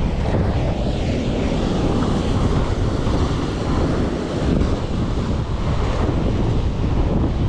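Ocean surf breaking and washing over the rocks, with wind buffeting the microphone in a steady low rumble.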